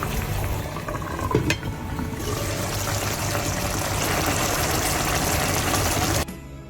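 Steady hissing and bubbling of liquid in a cooking pot, with a few sharp clicks, cutting off suddenly near the end.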